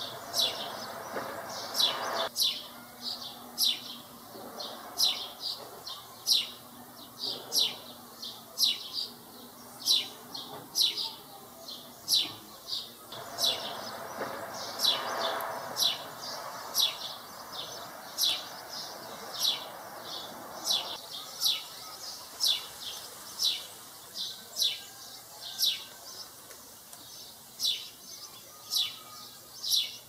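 A young sparrow chirping: a steady, repeated run of short, high chirps, each sliding downward in pitch, coming a little more often than once a second.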